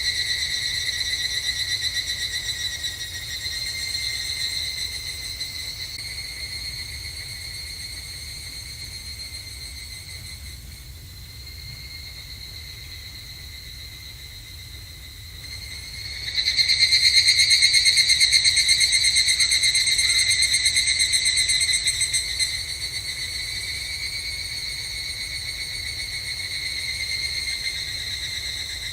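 Evening cicadas (higurashi) singing their ringing, rapidly pulsing trill. One call fades away over the first half, a louder one comes in about halfway and drops back after about six seconds, and softer calling carries on behind.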